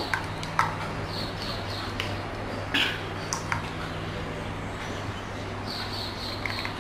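Plastic spatula stirring a thin semolina batter in a bowl, with a few light knocks against the bowl, over a low steady hum. Small birds chirp faintly now and then.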